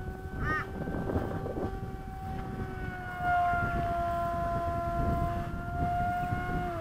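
VX-30 RC plane's motor and propeller whining steadily in flight. Its pitch drops a little and it gets louder about three seconds in, and it falls away right at the end. Wind rumbles on the microphone underneath.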